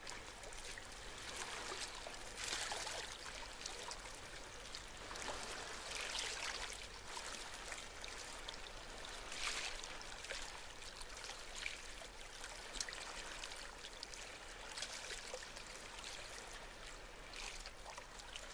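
Faint, steady water-like rushing and trickling noise that swells gently every few seconds, with light crackles.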